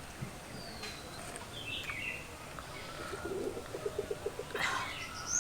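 Faint birdsong: scattered high chirps, with a quick run of low, evenly spaced notes midway, and a short noisy burst near the end.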